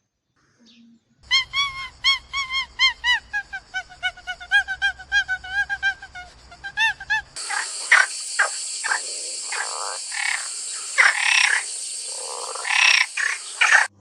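An animal's rapid series of short pitched calls, about three or four a second, falling slightly in pitch. About halfway through they give way to a noisier stretch of irregular louder sounds over a steady high hiss.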